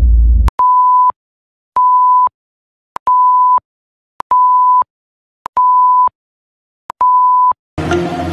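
Countdown intro beeps: six short, steady mid-pitched tones about a second and a quarter apart, each with a click at its start and end. A brief low rumble comes at the very start, and music begins near the end.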